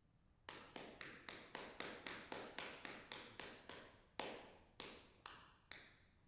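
A quick series of sharp taps with short decaying tails, about four a second, thinning to a few slower ones, about two a second, near the end.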